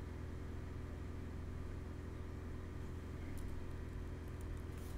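Steady low hum of background room or equipment noise, with a few computer keyboard keystrokes clicking from about three seconds in.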